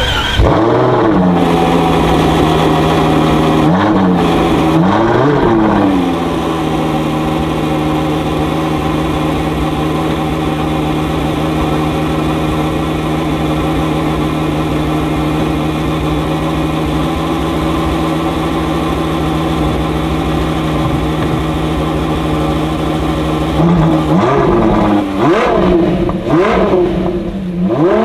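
Ferrari Daytona SP3's naturally aspirated 6.5-litre V12 being revved while stationary. It gives a quick blip at the start and two more around four and five seconds in, then settles into a steady idle. About 24 seconds in it breaks into a string of sharp rev blips that last to the end.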